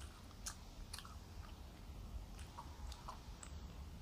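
Faint close-up chewing, with about five short soft mouth clicks scattered through it.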